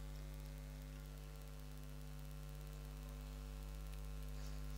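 Steady low electrical mains hum from the microphone and sound system, a constant buzz with its overtones over a faint hiss, heard while the recitation pauses.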